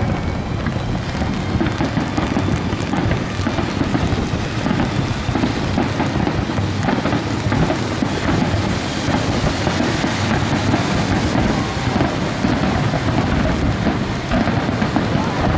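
Barrage of aerial fireworks shells bursting in rapid overlapping succession. The reports run together into a continuous rumble with no gaps.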